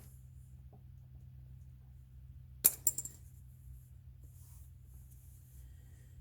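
Small metal tool parts clinking: one sharp metallic clink about two and a half seconds in, followed by a few lighter clinks with a brief high ring.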